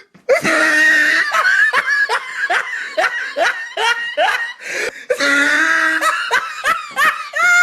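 A person laughing hard: a long run of short 'ha' bursts, each dropping in pitch, about two or three a second.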